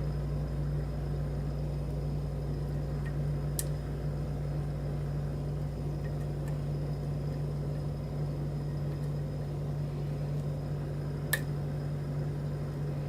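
Steady low mechanical hum, with two faint clicks of a lock pick working the pins of a pin-tumbler challenge lock, one about three and a half seconds in and one near the end.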